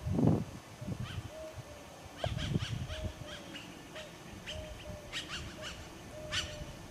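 Birds calling in quick clusters of short, high chirps, with a short lower note repeating between them. Two low rumbles, the loudest just after the start and another about two and a half seconds in.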